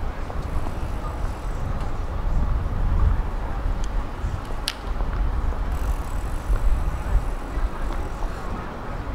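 Metro train running, a steady low rumble with rail and wheel noise heard from inside the carriage, with one sharp click about halfway through.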